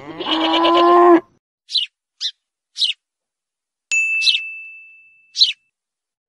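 Edited-in cartoon sound effects: a pitched tone lasting about a second, then a string of five quick high chirps, with a bell-like ding about four seconds in that rings out for a second and a half.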